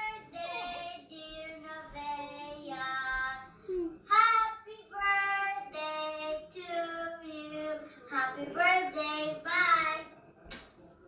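A young girl singing a solo song in held notes, heard through a TV's speakers. The singing stops near the end.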